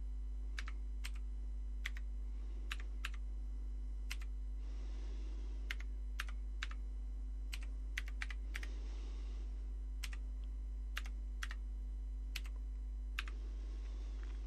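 Commodore VIC-20 keyboard being typed on slowly, one key at a time: separate sharp key clicks at an uneven pace, about twenty in all. A steady low hum runs underneath.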